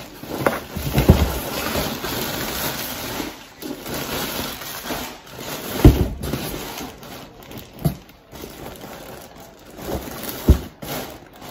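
Rummaging through packages and items: rustling handling noise broken by several sharp knocks, the loudest about six seconds in and another about ten and a half seconds in.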